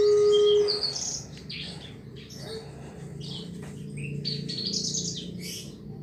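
Javan bushlark (branjangan) singing: a fast string of varied high chirps and short trills. Under a second in, a loud steady hum cuts off suddenly just before the song starts, and a faint low drone runs underneath.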